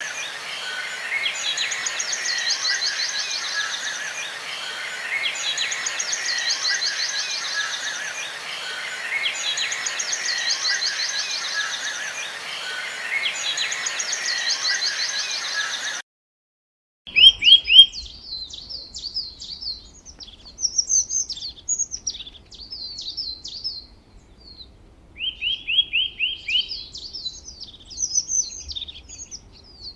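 Recorded birdsong. First, a bird's rapid trill repeats about every four seconds over a steady hiss. Then, after a second of silence, a different stretch of clear, varied chirps and short trills follows.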